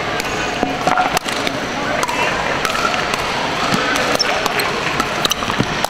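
Pickleball paddles striking the hard plastic ball during play: a string of short, sharp pocks at irregular intervals, over background chatter.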